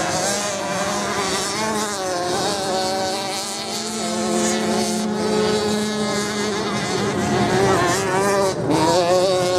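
Off-road motorcycle engines on a beach sand-racing course, the engine note rising and falling as the riders work the throttle, with a steadier engine drone underneath. Near the end, one engine revs up sharply.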